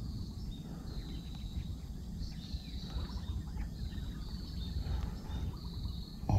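Steady low outdoor rumble, with short high animal calls repeating now and then.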